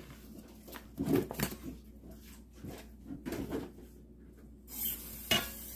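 Kitchen handling noises: a few scattered knocks and scrapes as cookware is moved about on a wooden board, then a rustle with a sharp click near the end.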